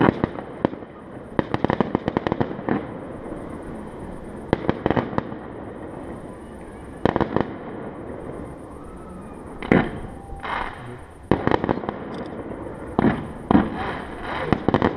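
Fireworks going off: irregular loud bangs and clusters of rapid firecracker cracks, in bursts every second or two, with busier volleys about a second in and again in the second half.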